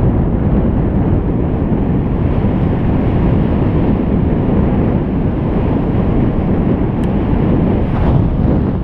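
Wind buffeting the microphone while cycling at speed, a steady loud rumble with no distinct events.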